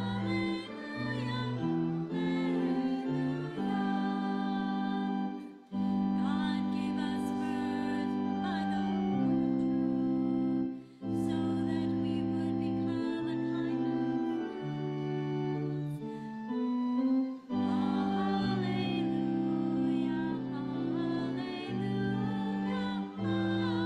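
Church organ accompanying sung Gospel acclamation by the congregation, in four phrases of held chords with short breaks between them.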